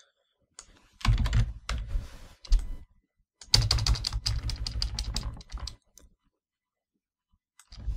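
Computer keyboard typing in bursts: scattered keystrokes about a second in, then a quicker run of keys for about two seconds, then a pause.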